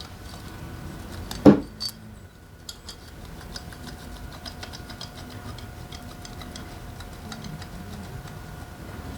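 Metal tools and engine parts clinking on a workbench during motorcycle engine disassembly: one sharp metallic clank about a second and a half in, then a long run of light, quick ticks.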